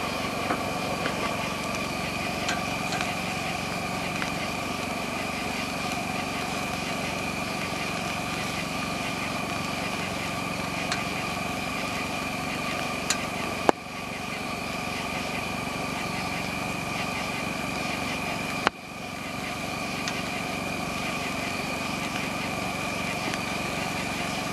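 Wood fire crackling under chicken wings grilling on a metal grate, over a steady engine-like hum. Two sharp clacks a little past halfway, as tongs turn the wings on the grate.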